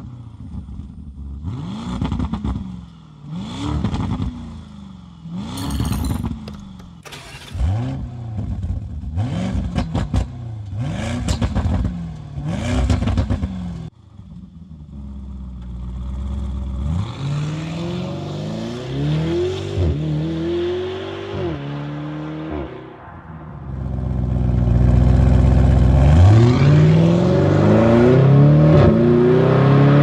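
Lamborghini Urus twin-turbo V8 on its stock exhaust in Corsa mode, started and then revved in short blips about eight times. It then pulls away, climbing through several upshifts, and finishes in a louder full-throttle run near the end.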